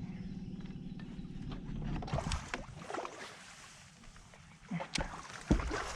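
A boat motor hums steadily for about two seconds, holding the boat against the river current, then stops. Splashing and knocks on the boat follow, with two sharp knocks near the end.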